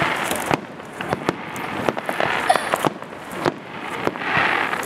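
Aerial fireworks display: shells bursting overhead as a run of sharp bangs and pops at an uneven pace, several in quick succession at times.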